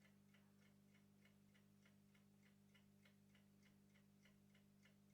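Near silence: a faint, regular ticking at about three ticks a second over a low steady hum.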